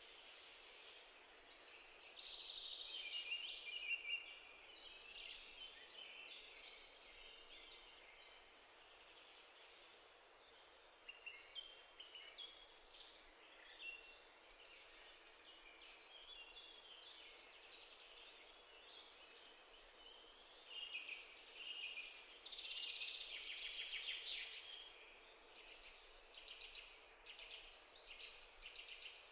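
Faint crackling sizzle of food frying in hot oil in a pot, first egg and later diced tomatoes. It rises and falls, swelling loudest early on and again about three quarters of the way through.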